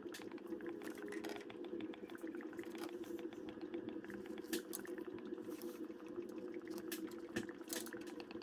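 Oil draining out of a tractor's rear axle housing, trickling and dripping into a drain pan: a steady trickle with many small patters and a few sharper drips.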